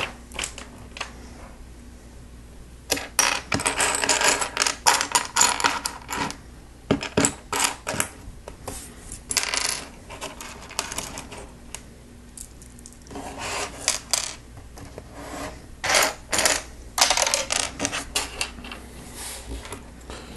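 Small plastic Lego pieces clattering and clicking as they are handled, in several bursts of rapid clicks with short lulls between.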